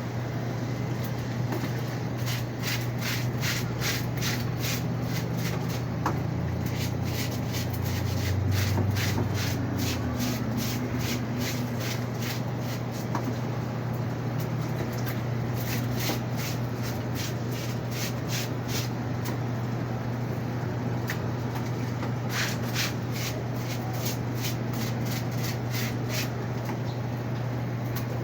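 Panasonic fully automatic washing machine running, with a steady motor hum and runs of quick, evenly spaced clicking that come and go; a deeper rumble swells briefly about a third of the way in.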